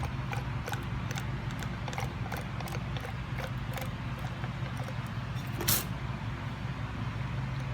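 Light metallic clicks and ticks from parts of a ZF 8HP45 automatic transmission's oil pump being handled on the bench, with one louder clank about five and a half seconds in. A steady low hum runs underneath.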